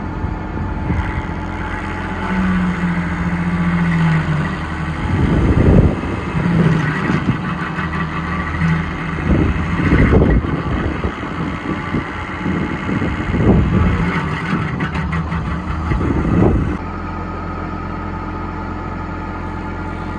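Bobcat E10 mini excavator running a Geko stump grinder. Its engine drone surges in repeated louder bursts as the grinder works, then drops abruptly to a steady run near the end.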